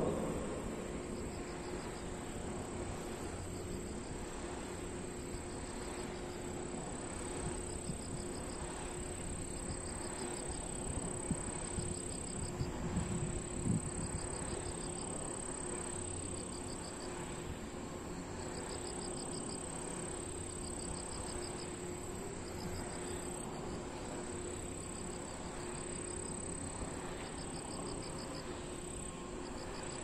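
Grass insects calling: one keeps up a steady high trill, while another gives a short pulsed chirp every second or two. Beneath them runs a low steady hum and rumble from the spinning wind turbines.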